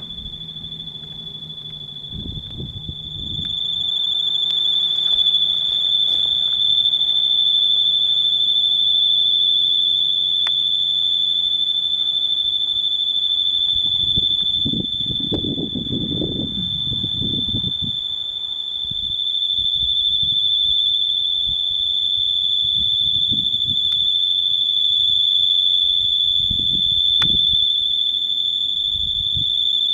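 Overhead wires whistling in the wind: one steady, high-pitched tone that holds without a break. Gusts of wind buffet the microphone underneath, most strongly about halfway through.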